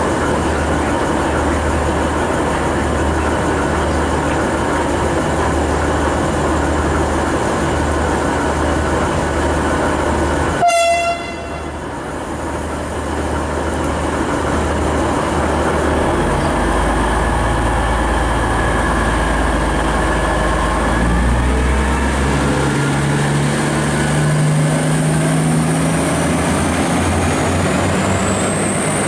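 V/Line VLocity diesel multiple unit idling at the platform, with one short horn toot about eleven seconds in. Its diesel engines then open up and the note climbs as the train pulls away, with a rising high whine near the end.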